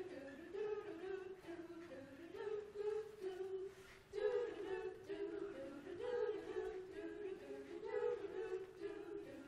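Women's chorus singing a cappella in harmony, held notes moving from chord to chord every half second or so.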